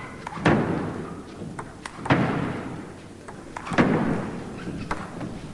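Table tennis rally: the celluloid ball clicking sharply off the bats and the table, a string of hits at uneven spacing. The crowd's noise swells up three times and fades back.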